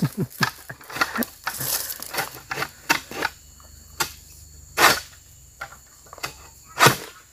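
Long-pole harvesting sickle (egrek) cutting at an oil palm's frond and fruit-bunch stalks up in the crown: a run of sharp strokes, the loudest about three, five and seven seconds in.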